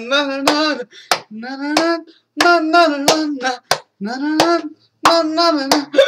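A man singing wordless held notes, with sharp hand claps between the phrases.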